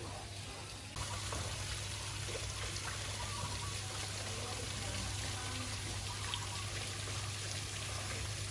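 Running water trickling and pouring steadily, louder from about a second in, over a low steady hum.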